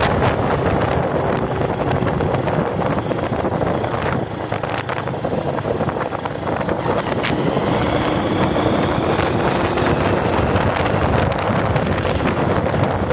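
Heavy wind buffeting the microphone of a moving motorcycle, with the bike's engine running steadily underneath.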